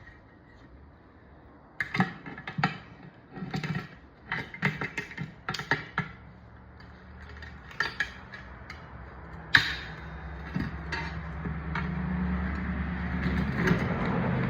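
Sharp metal clicks and clanks from hand tools working a stiff studded quad tire on its wheel. A steady low machine hum starts partway through and grows louder toward the end.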